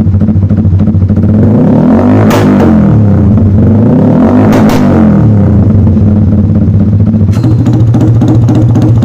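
Motorcycle with an aftermarket exhaust revved twice, its pitch rising and falling back each time, over a steady run, with music playing alongside.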